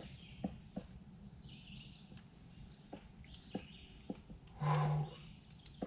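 Songbirds chirping repeatedly in the woods, with a few faint clicks, and a single short, low, steady-pitched grunt-like sound about four and a half seconds in that is the loudest thing heard.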